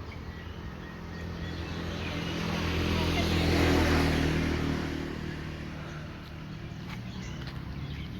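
A motor vehicle passes by, its engine growing louder and then fading away over a few seconds.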